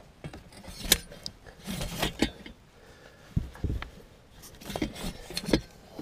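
Handling noise of wiring work: irregular clicks, knocks and light rattles as cables, a plastic plug and a voltage tester are moved about by hand.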